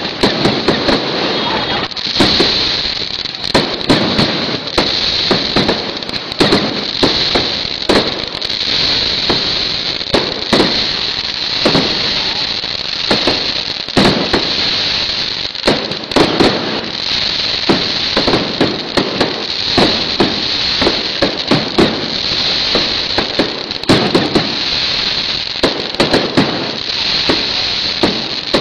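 Fireworks display: a continuous barrage of aerial shell bursts and firecracker bangs, several a second, over a steady high hiss.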